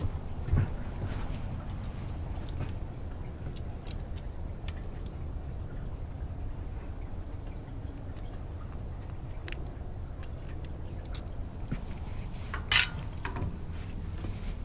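A steady, high-pitched chorus of insects droning without a break, over a low steady rumble. A few light clicks and one sharp clack near the end come from fishing tackle being handled.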